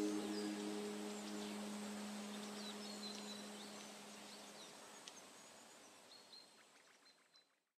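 Background music fading out: held low tones that stop about halfway through, with short high chirps over a soft haze, all dying away to silence near the end.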